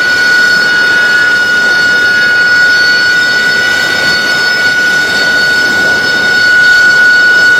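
AV-8B Harrier II's Rolls-Royce Pegasus turbofan idling on the ground: a steady high-pitched whine over a rushing noise.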